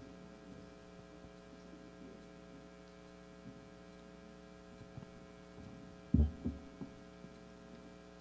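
Steady electrical mains hum with a stack of buzzing overtones from the church sound system. About six seconds in come three quick, low thumps of handling noise.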